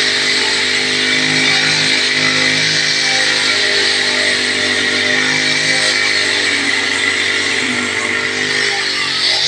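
Petrol-engined string trimmer (brush cutter) running at high speed, its line head cutting grass. The engine note drops about eight seconds in and picks up again near the end.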